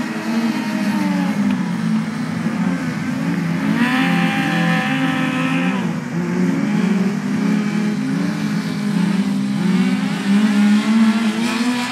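Several compact speedcar engines racing at once, their pitches overlapping and rising and falling continuously as the cars rev up and back off around the speedway.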